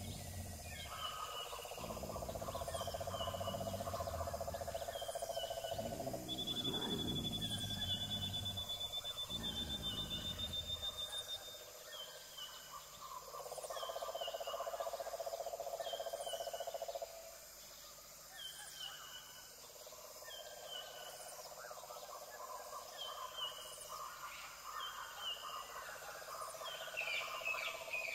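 Wildlife ambience: short high bird chirps about every second and a half, over a mid-pitched drone that comes and goes in spells of a few seconds. A long high whistle-like tone runs from about six to twelve seconds in, and a low rumble stops about eleven seconds in.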